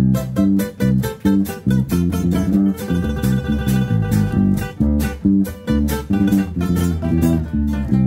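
Instrumental break of a song: guitars and bass guitar playing with a steady beat, no singing.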